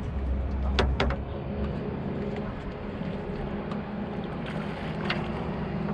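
A boat's outboard motor running steadily with a low hum, with a few sharp clicks about a second in and again near the end.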